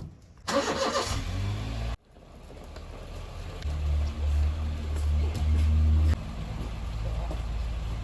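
A motor vehicle's engine running, with a low rumble that swells loud for a couple of seconds in the middle and then settles.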